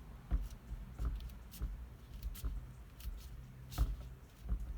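Irregular light clicks and knocks of hands handling small metal parts, likely the steering-wheel nut and hub, several taps spread over a few seconds.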